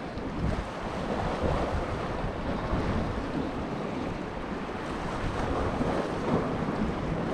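Sea waves washing against rocks, with wind buffeting the microphone: a steady rushing noise.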